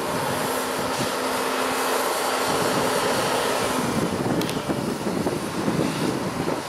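Diesel engine of a JCB 418S wheel loader working hard while buckraking chopped maize up a silage clamp. There is a steady hum at first, and the sound turns rougher and deeper about four seconds in.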